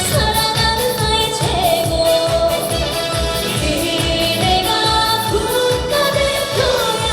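Trot song performed live: a female singer's voice holding and sliding between notes over a backing track with a steady beat.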